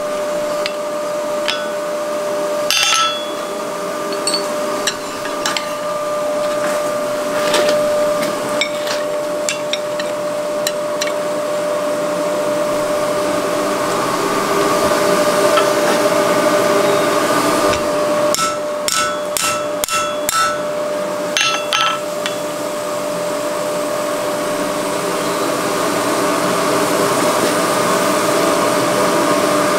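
Hand hammer striking red-hot wrought iron on an anvil while forge-welding a cleft joint: scattered single blows, then a quick run of about eight light, fast blows about two-thirds of the way through. Under it runs the steady drone of the forge blower.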